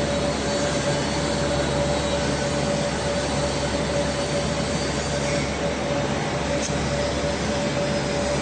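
Steady machine drone: an even noise with a constant mid-pitched tone and a low hum underneath, unchanging throughout.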